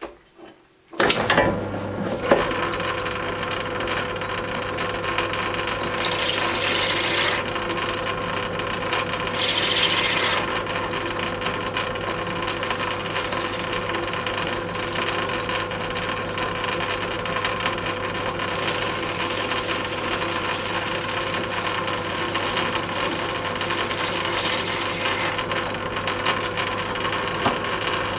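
Metal lathe switched on about a second in, then running steadily with motor hum and gear whine while the cutting tool turns a cast wheel, the scraping of the cut rising several times as the tool is fed in, longest in the second half.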